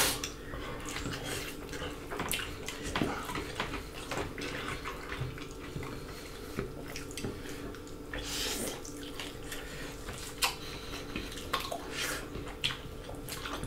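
Eating sounds from two people eating with their hands: wet chewing and lip smacks, with scattered small clicks of fingers and food against plates.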